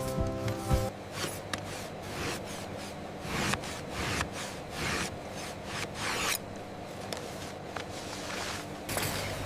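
Repeated short rubbing and swishing strokes, about two a second, going quiet for a couple of seconds before one louder stroke near the end. The strokes are typical of leather being handled or worked by hand.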